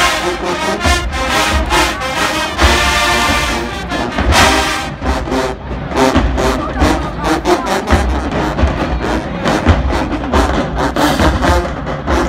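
College marching band playing loudly, a full brass section over drums, with frequent sharp drum hits.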